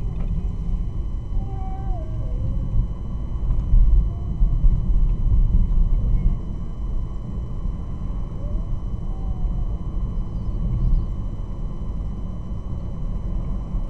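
Low, steady road and engine rumble inside a moving car's cabin, louder for a couple of seconds about four seconds in.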